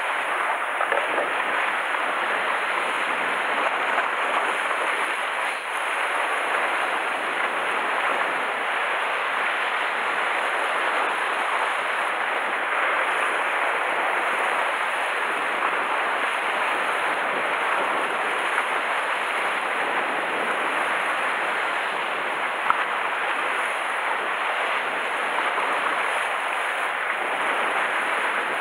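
Sea surf washing against a rocky shoreline, a steady rushing noise with no breaks. A single short click sounds once, about three-quarters of the way through.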